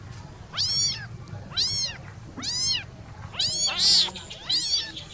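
Young kittens meowing: about six high-pitched, arching mews roughly a second apart, two of them overlapping near the end as more than one kitten calls, over a low steady hum.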